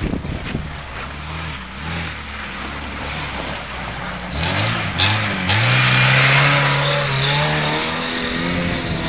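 Lada Niva (VAZ-2121) engine revving in bursts, then climbing sharply about four seconds in and held high for a couple of seconds under load, with a hiss of spinning wheels throwing snow and a sharp knock about five seconds in.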